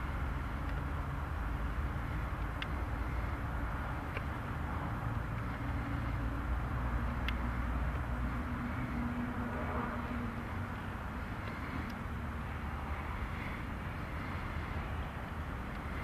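Outdoor ambient noise: a steady low rumble with a few faint ticks, and a faint hum that swells briefly about nine to ten seconds in.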